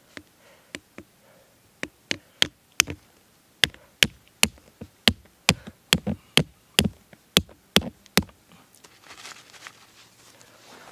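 A tent peg hammered into forest-floor soil with a hand-held rock: about twenty sharp knocks, a few spaced taps at first, then a steady run of about two strikes a second that stops about eight seconds in. Faint rustling of hands in the needle litter follows.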